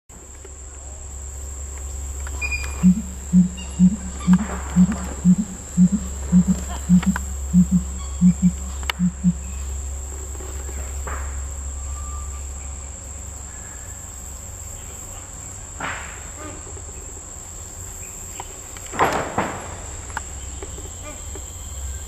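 Victoria crowned pigeon's display call: a run of about fourteen deep booming notes, about two a second, starting about three seconds in and stopping about nine seconds in. A steady high insect drone runs underneath, and there is a brief rustling burst near the end.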